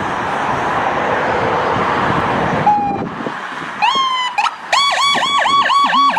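A steady rushing hiss for the first two and a half seconds, then a toy ambulance's electronic siren: a falling tone, then a rapid wail that rises and falls about four times a second.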